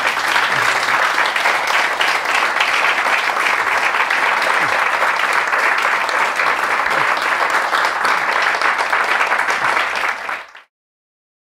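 Audience applauding steadily, a dense patter of many hands clapping; it cuts off suddenly near the end.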